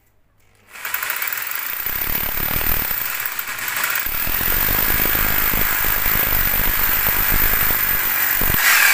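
Electric hammer drill with a masonry bit boring into a plastered brick wall. It starts about a second in and runs steadily and loud with a fast hammering rattle.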